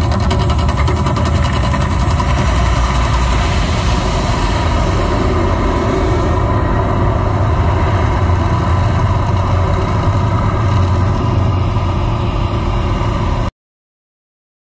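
The Mirage's man-made volcano erupting: a loud, steady low rumble with the roar of gas flames shooting from the peak, the flame hiss dying away about six seconds in while the rumble carries on. The sound cuts off abruptly about a second before the end.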